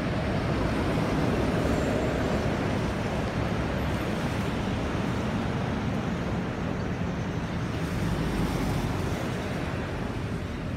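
Road traffic: passing cars make a steady rush of noise, swelling slightly about a second in and again near the end.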